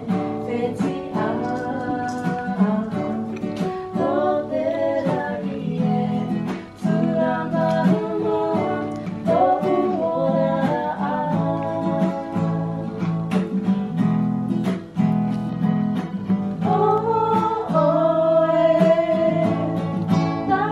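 Acoustic guitar strummed in steady chords, with a woman singing a melody over it.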